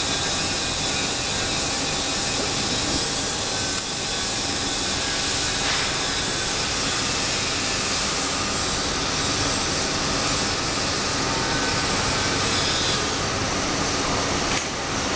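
Steady machine-shop hum and hiss, with a few light metal clicks from the welding fixture being handled.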